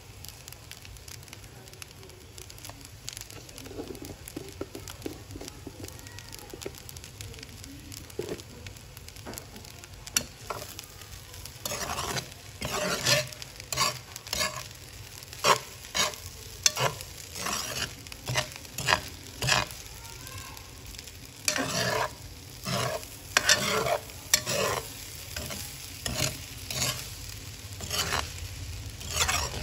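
Metal slotted spatula scraping and tossing shrimp fried rice in a honeycomb-textured frying pan, over a light sizzle of stir-frying. After a quieter stretch, the strokes start about ten seconds in and repeat about once a second.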